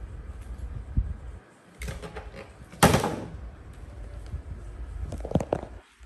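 Knocks and clatter of household objects being handled on a tiled floor: a dull knock about a second in, some rattling, a sharp loud clack a little before the middle, and a few lighter knocks near the end.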